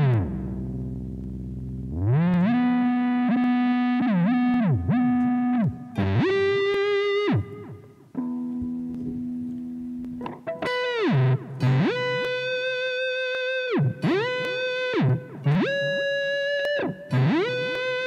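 Distorted electric guitar through a Zoom G1Xon pitch-bend patch worked by the expression pedal, imitating a whammy-bar dive bomb. A held note plunges at the start into a low growl and swoops back up about two seconds in. Held notes then bend down and back, with several quick dives in the second half.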